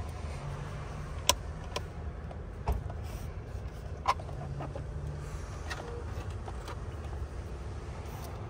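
Scattered sharp clicks and knocks of plastic trim, connectors and hand tools being handled while a car interior is taken apart, over a steady low hum. The two loudest clicks come about a second in and about four seconds in.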